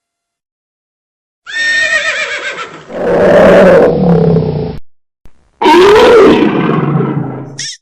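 A large wild animal calling loudly: a high, wavering whinny-like cry starts about a second and a half in, followed by two long, loud roaring calls that rise and fall in pitch, with a short gap between them.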